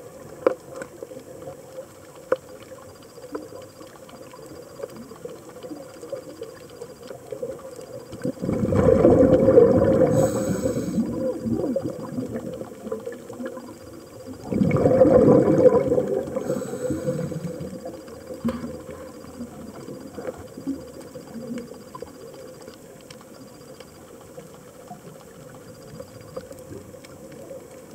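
Underwater sound of a scuba diver's exhaled breath bubbling out of the regulator: two loud, bubbly rushes of about two to three seconds each, roughly six seconds apart, over a faint background of scattered small clicks.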